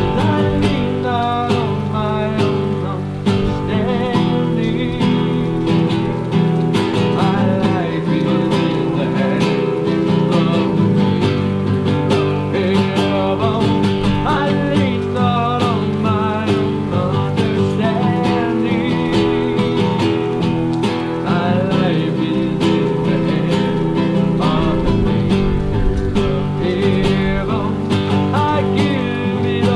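Background music led by acoustic guitar, in a country style, at a steady level throughout.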